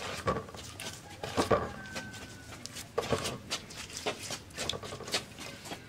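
Hands rubbing spice paste into a whole fish in an aluminium bowl: irregular wet rubbing with a series of short knocks and clicks against the bowl.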